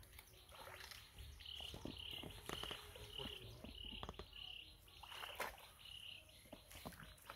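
A short, high chirping call repeated evenly about twice a second, starting about a second and a half in and stopping near the end, over faint scattered clicks and knocks.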